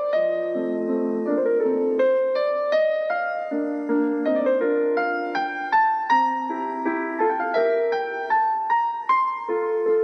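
Background piano music: a gentle melody of single struck notes over sustained lower notes, several notes a second.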